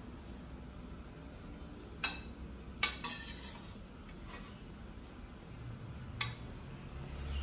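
A metal utensil clinking against a stainless-steel bowl as a pale mixture is stirred: about five sharp clinks at uneven intervals, two close together near the middle.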